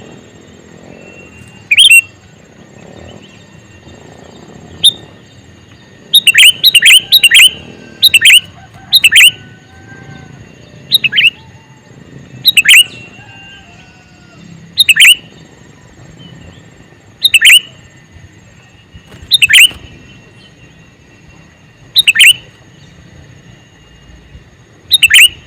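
Male sooty-headed bulbul giving loud, sharp, chirping calls. Single calls come every two to three seconds, with a quick run of several calls about six seconds in.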